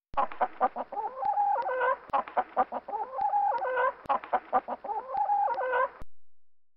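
Recorded hen clucking sound effect: a run of short clucks ending in a longer drawn-out cackle, the same phrase played three times in a row, about every two seconds, and cut off abruptly.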